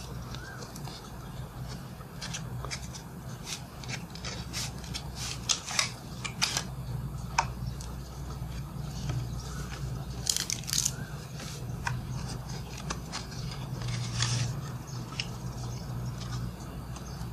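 A paperboard tuck box and a new deck of Bicycle playing cards being handled: scattered clicks, snaps and rustles as the box flap opens, the deck slides out and the cards are spread on a table, over a steady low hum. The sharpest snaps come a little past five seconds in and around ten seconds in.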